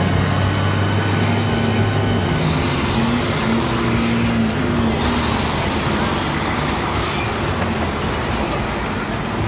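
Road traffic going by: a vehicle engine's low, steady hum stops about two seconds in, over a constant wash of passing-car noise.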